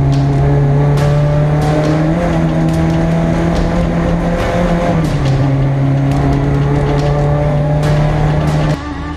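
Race-prepared VW Polo's engine heard from inside its stripped cabin, running hard at steady high revs on track, with sharp ticks and rattles throughout. The engine note steps up slightly about two seconds in and drops back around five seconds. It cuts off abruptly to something quieter just before the end.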